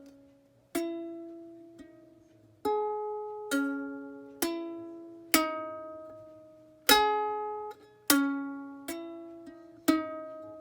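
Ukulele strummed slowly, a single chord at a time, each one left to ring out and fade before the next; about nine chords.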